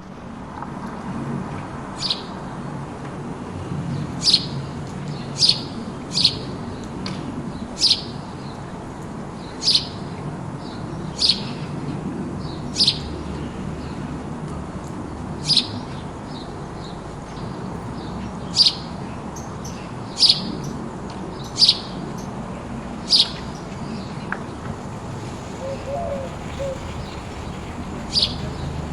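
Sparrow chirping: single short, sharp chirps repeated every second or two, over a steady low background noise.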